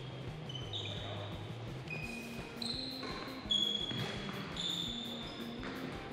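Badminton players' court shoes squeaking in short chirps on the indoor hall floor, with a sharp racket hit on the shuttlecock about three and a half seconds in.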